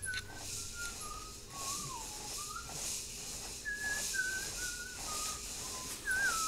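A person whistling a slow tune: clear single notes, stepping downward in two runs, with a wavering note near the end.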